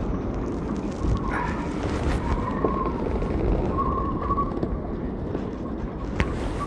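Strong wind gusting across the microphone, heard as a steady low rushing. A few faint short whines and a single sharp click about six seconds in.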